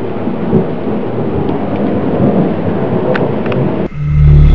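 Thunder rumbling steadily through a thunderstorm, with a few faint clicks, cut off abruptly near the end by loud music with a bass line.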